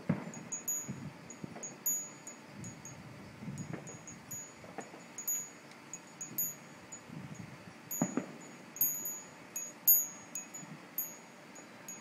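Distant fireworks going off at irregular intervals, with soft low thuds and a few sharper pops. Short, high tinkling tones sound over them throughout.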